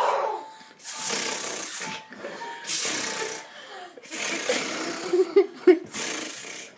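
A child's mouth-made lawnmower impression: a rasping, buzzing engine noise voiced in repeated breathy bursts of about a second each, with short breaks for breath between them.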